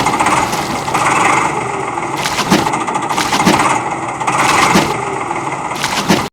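Small machine motor running steadily with a fast whirring clatter, with a heavier knock roughly once a second; it cuts off suddenly at the end.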